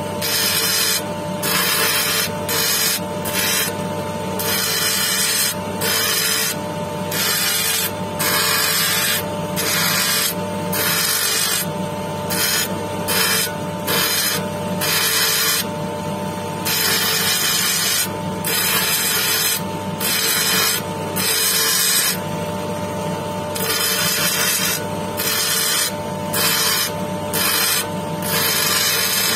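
Jasper cabochon pressed again and again against a spinning wet lapidary wheel. It rasps in short strokes, each a second or so long, over the steady hum of the machine's motor.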